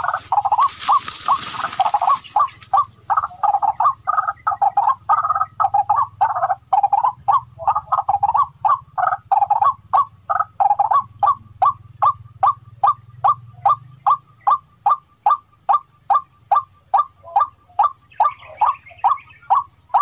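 A waterhen's call: short croaking notes repeated monotonously at about three a second, used as a lure call. A brief hiss covers the first couple of seconds.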